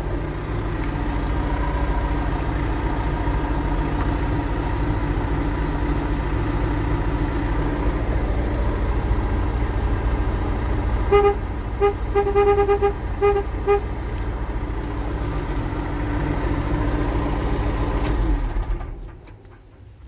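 John Deere backhoe's diesel engine idling steadily, with a quick run of about five short horn toots about halfway through. Near the end the engine shuts off and runs down to quiet.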